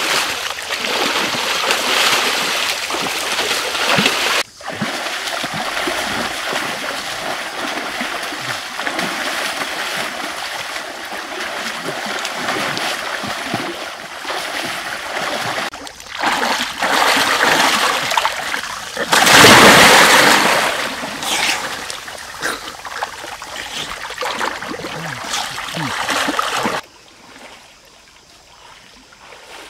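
Water splashing and churning as people thrash and swim in a small pool, with the loudest burst of splashing about two-thirds of the way through. Near the end it falls much quieter.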